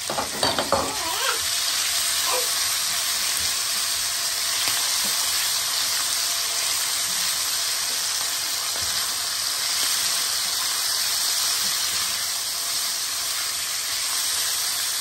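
Raw minced chicken sizzling steadily in hot oil and chopped garlic in a nonstick frying pan: an even, high hiss of frying meat.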